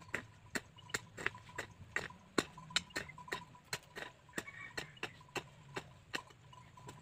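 A hoe chopping into soil: quick, sharp strikes, about two or three a second.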